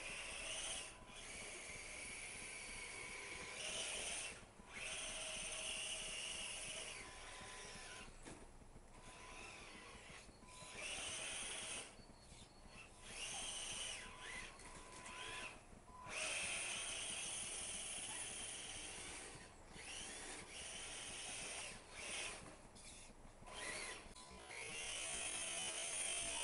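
Electric motor and drivetrain of a Tamiya Ford F-150 radio-controlled racing truck whining under repeated bursts of throttle as it spins its wheels through snow. The whine rises and falls in pitch with each burst, with short breaks between bursts.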